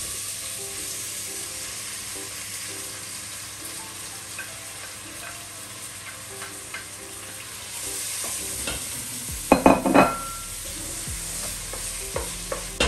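Chopped fresh tomatoes sizzling as they are scraped with a spoon into hot oil and fried tomato paste in a steel pot, with a steady frying hiss. A quick cluster of sharp knocks comes about nine and a half seconds in.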